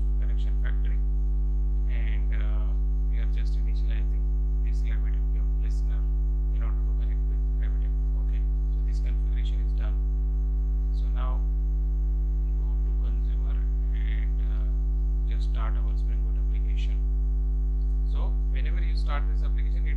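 Steady low electrical mains hum from the recording setup, constant in level, with faint scattered short sounds over it.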